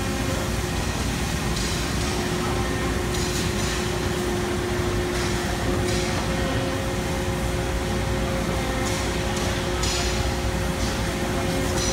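RMT B-ECO 6-44 CNC press brake running: a steady machine hum with two held tones, broken several times by short, higher-pitched hissing bursts as parts are bent.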